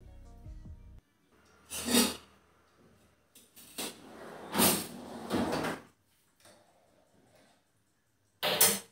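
Kitchen handling clatter: a drawer sliding open and shut and things being moved, in several separate bursts, the loudest about two seconds in and again near the end.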